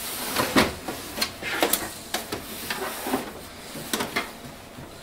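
Canon MAXIFY MB2020 inkjet printer's plastic housing sliding and scraping on a wooden desktop as it is turned around by hand, with a string of light knocks and clicks.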